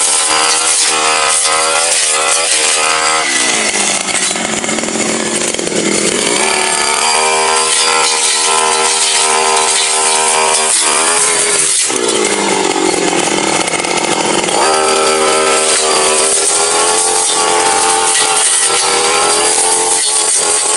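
Tasto TK 328G brush cutter engine running at full throttle while its blade cuts through thick brush. The engine note drops twice as the blade bogs down in dense growth, then climbs back to high revs.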